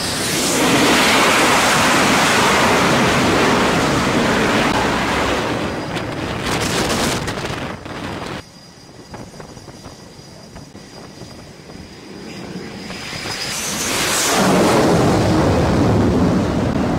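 F/A-18 jet engines running loud as carrier jets pass close on the flight deck, with a high turbine whine over the noise. The noise drops off abruptly about eight seconds in, then builds again to a second loud jet pass near the end.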